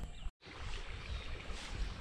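River water running with wind buffeting the microphone, a steady rushing hiss over a fluttering low rumble; the sound cuts out completely for a moment about a third of a second in.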